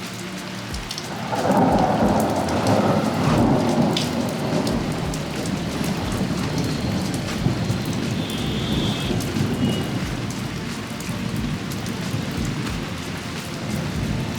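A long rumble of thunder swells about a second in and slowly dies away over the next several seconds, over steady rain.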